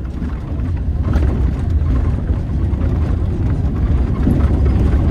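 Cabin noise of a city bus in motion: a steady low rumble of the drive and road, which grows a little louder about a second in.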